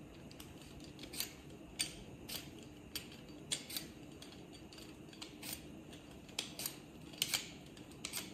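Raw potato being peeled with a vegetable peeler: short, sharp scraping strokes, about two a second at an uneven pace.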